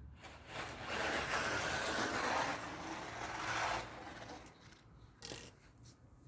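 Electric RC buggy running on the track: a rough, rasping run of noise swells about half a second in, holds for about three seconds, then fades, with a short sharp knock a little later.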